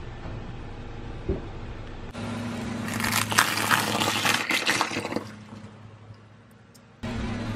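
Empty eggshells cracking under a car tyre: a dense, crunchy crackle starting about three seconds in and lasting a couple of seconds before dying away, over a low steady hum.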